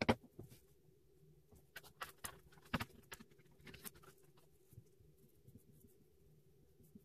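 Scattered light clicks and taps of plastic art markers being handled and set down on a wooden desk, the sharpest click right at the start and a few more around two to three seconds in.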